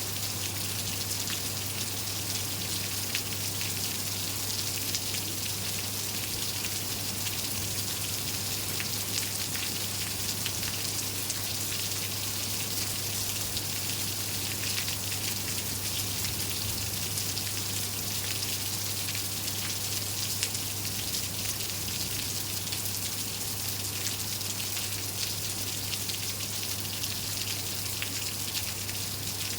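Steady rain falling, a dense, even patter of drops striking surfaces, with a steady low hum beneath it.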